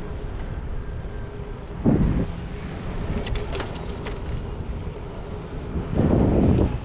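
Wind rushing over the microphone of a camera on a moving bicycle, with a steady low road rumble. Louder gusts come about two seconds in and again near the end, with a few sharp ticks in between.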